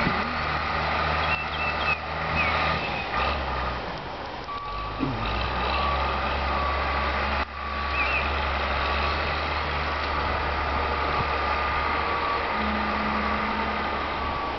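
Heavy machinery engine running steadily, with a backup alarm beeping over it; its pitch shifts about four seconds in. Birds chirp briefly now and then.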